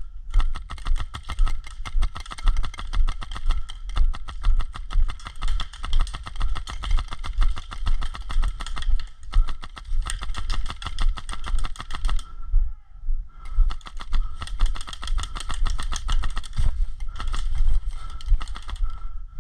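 Airsoft guns firing in rapid, dense clicks, pausing briefly about two-thirds of the way in, over low thumps about twice a second from footsteps and gear as the player moves.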